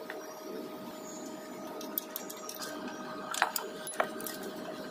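Hand tools and steel gearbox parts clinking against the cast casing of a truck gearbox being stripped: a handful of sharp metal clinks in the second half, the loudest about three and a half seconds in, over a steady faint hum.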